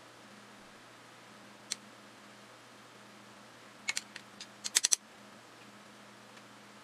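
Sharp little clicks of painting tools being handled: a single click, then about a second later a quick run of about eight clicks over roughly a second, over a faint steady hum.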